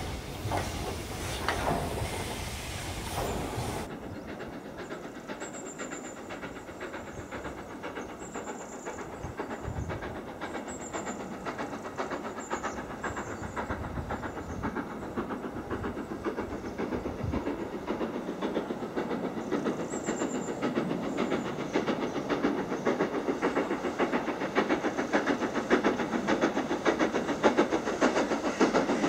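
Steam locomotive hauling a train of carriages hard up a gradient toward the listener, its exhaust beats coming in a fast, even rhythm and growing steadily louder as it nears. The sound changes abruptly about four seconds in.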